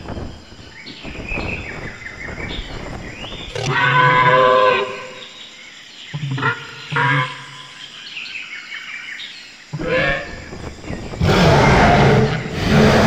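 Prehistoric-creature sound effects from an augmented-reality dinosaur display: loud animal calls, one of about a second, then two short ones, then longer calling near the end as the pterosaur swoops in.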